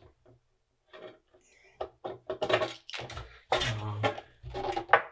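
A man talking, preceded by a few light clicks and knocks.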